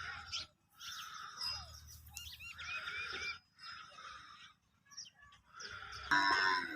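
Outdoor farm-animal sounds: a few faint bird chirps in the middle, then a loud call from a farm animal starts about six seconds in.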